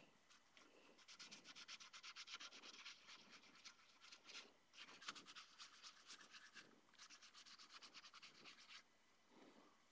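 Faint rasp of wet sandpaper rubbed in quick short strokes over the primed surface of a 3D-printed helmet, at about eight strokes a second. It pauses briefly twice and stops shortly before the end.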